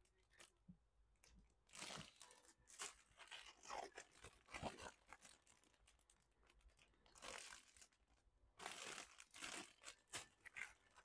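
Faint, irregular crinkling and rustling of clear plastic bags wrapped around plastic model-kit sprues as they are handled, coming in several short spells.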